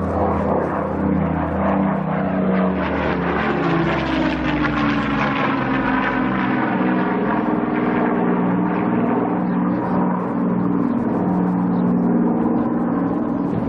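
Heinkel He 111 bomber's twin piston engines running as it flies past, the engine note falling in pitch a few seconds in as it goes by.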